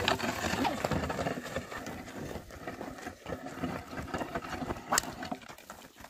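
Irregular scuffing and scraping of a wooden ox-drawn plough dragging through dry soil, with hooves and footsteps. A sharp click comes about five seconds in.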